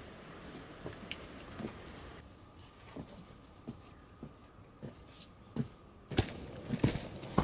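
A hiker's footsteps and trekking-pole taps on a rocky dirt track going downhill, uneven and irregular, becoming louder and more frequent in the last second or so.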